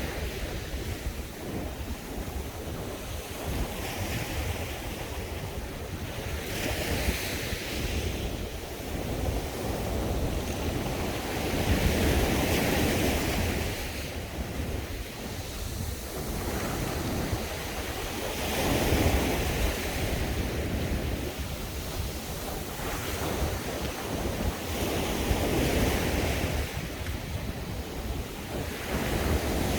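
Sea waves breaking and washing onto a beach, the surf swelling about every six or seven seconds. Wind buffets the microphone with a steady low rumble underneath.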